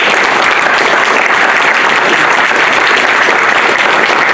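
An audience applauding: many hands clapping together, loud and steady.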